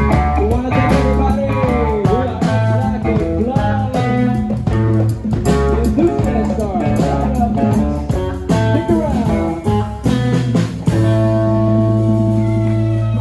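Live blues-rock band playing: electric guitar with bending, sliding lines over drum kit, bass and organ. About eleven seconds in the drumming stops and a held chord rings on.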